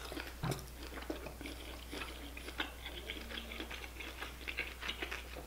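Faint, close-miked eating sounds: scattered wet clicks and chewing from a sauce-covered seafood boil.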